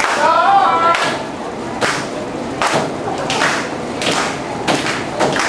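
A voice calling out briefly, then a string of sharp knocks, several of them, spaced a second or less apart.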